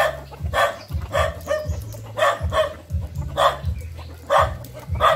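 A dog barking over and over, about two barks a second with a short break near the middle, over a steady low hum.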